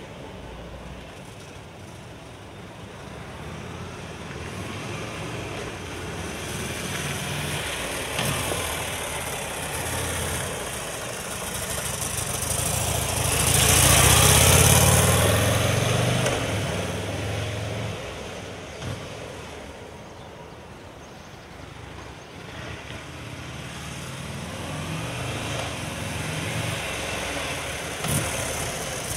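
Buell XB12STT Lightning Super TT's air-cooled 1203 cc V-twin running as the motorcycle is ridden. It grows louder to a peak about halfway through as the bike passes close by, fades as it rides away, then builds again as it comes back.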